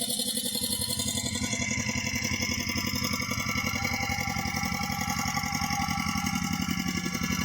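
Walking tractor's engine running steadily with an even, regular beat.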